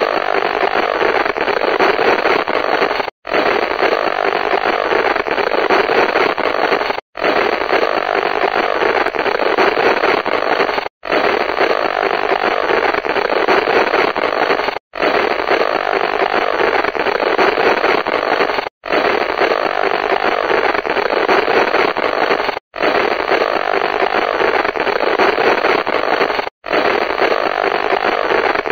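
Radio static: a steady hiss with no music, thin in the bass and dull in the top end, cutting out for an instant about every four seconds.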